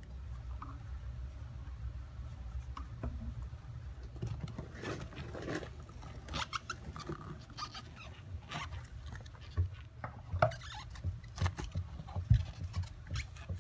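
Old leather cover of a car's centre console armrest being peeled and worked off its foam cushion and plastic base by hand: irregular scratchy rustling and tearing.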